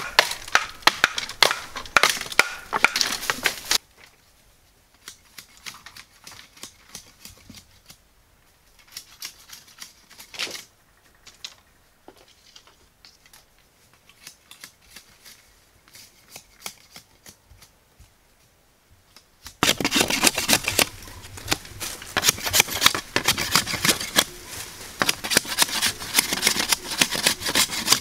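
Rapid clicking, crackling and knocking of bamboo poles and brush being handled and cut. It is dense for about the first four seconds, thins to scattered clicks, then turns dense again about two-thirds of the way through.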